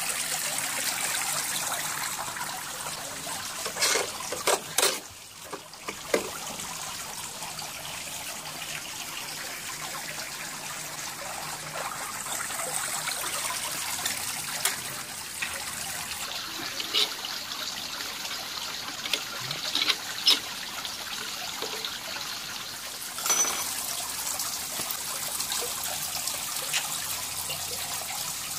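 Steady trickle of water into a rock-edged garden pond. It is broken by a few sharp clicks and knocks as wooden trap boards and a metal-edged tray are handled, with a small cluster about four to six seconds in.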